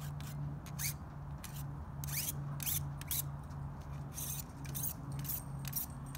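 Handheld Sharpens Best sharpener drawn in short scraping strokes along a scissor blade, about two strokes a second and a dozen or so in all, steel ringing faintly off the blade.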